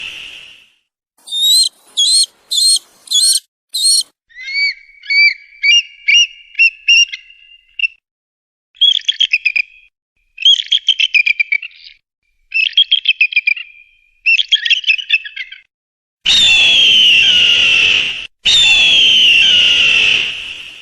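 A series of eagle calls with short silences between them: five short, high chirps, then a run of whistled chirps, then four bouts of rapid chittering. Near the end come two long, loud, harsh screams that fall in pitch.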